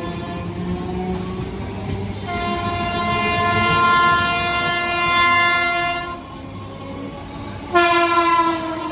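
Indian Railways train horn sounding a long steady blast of about three and a half seconds, then a shorter blast about a second long near the end, over the rumble of a running train.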